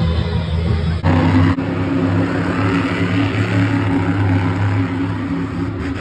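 Monster truck engine running loud and steady, heard through the arena, swelling briefly about a second in.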